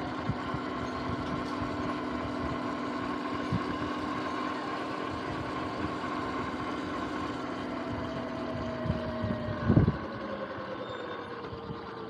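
Sur-Ron X electric dirt bike's motor and chain drive whining steadily while riding, with scattered short knocks. Late on, after a louder thump, the whine falls in pitch as the bike slows down.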